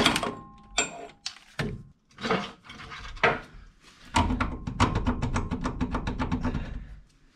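Hand ratchet wrench on a Jeep Wrangler JKU's front shock bolt, working the bolt loose: a few separate metal clinks, then from about four seconds in a fast, even clicking of the ratchet, roughly ten clicks a second, for nearly three seconds.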